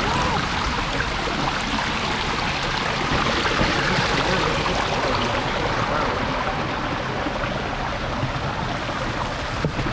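Steady rushing of running water, like a stream or small waterfall.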